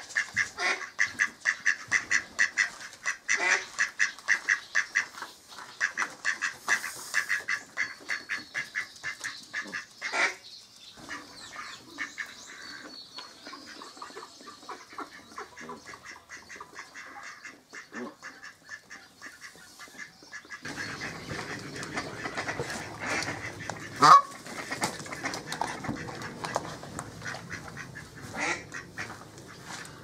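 Mallard ducks quacking in quick runs, several calls a second for the first third, then more scattered. About three-quarters of the way through a Canada goose gives one loud honk that rises in pitch.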